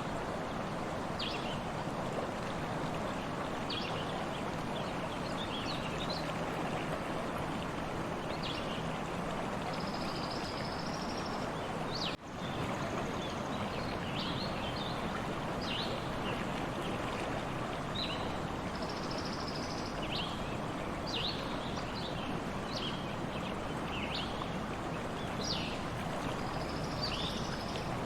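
A stream running steadily, with small birds chirping in short, scattered calls throughout. The sound drops out briefly about twelve seconds in.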